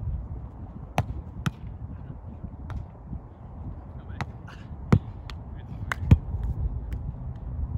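Sharp slaps of hands and forearms striking a volleyball during a beach volleyball rally: a string of separate hits, the loudest about five and six seconds in. A low rumble of wind on the microphone runs underneath.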